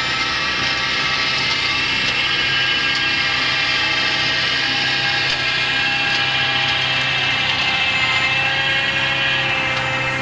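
Hydraulically driven flail mulcher head of a GL1 Kompass Avant 500 tractor boom mower running at speed as it mulches dry grass: a steady high whine over the low hum of the tractor's engine.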